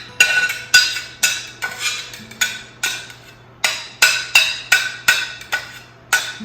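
A metal spoon knocking repeatedly against metal cookware, about two sharp ringing clinks a second, as chopped onions, garlic and peppers are knocked off into the pot.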